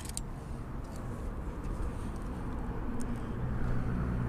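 A low engine hum, growing louder about three and a half seconds in.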